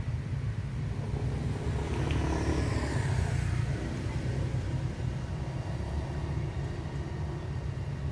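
Low steady rumble of a motor vehicle, swelling and fading again about two to four seconds in.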